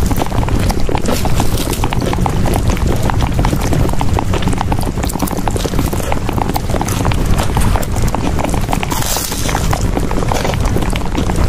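A dense, unbroken patter of clicks and knocks over a steady low rumble, with a brief swell of hiss about nine seconds in.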